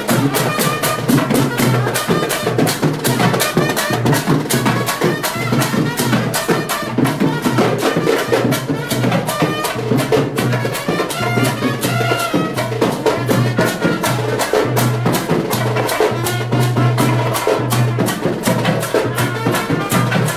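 Sri Lankan papare band music: brass playing over fast, driving drums.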